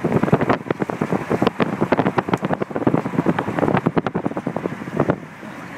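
Wind buffeting a phone's microphone in a moving car, a dense irregular crackle and rumble over road noise. About five seconds in it drops to a steadier, quieter hiss.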